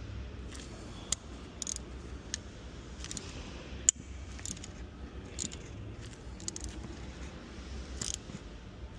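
Scattered small metallic clicks and scrapes of hand tools working a screw extractor (easy out) in a broken bolt, with one sharper click about four seconds in.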